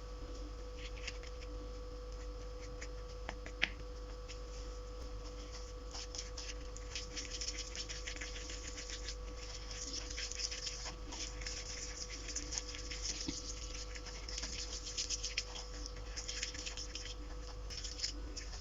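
Homemade flour-and-powder slime mixture being mixed and squished, a dense irregular patter of fine sticky crackles and clicks that grows busier after about six seconds, over a steady electrical hum.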